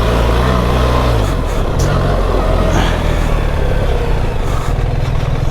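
BMW R 1300 GS Adventure's boxer twin engine running while the bike is ridden on a dirt trail, its note changing about a second in and pulsing harder near the end, over steady wind and riding noise with a few short knocks.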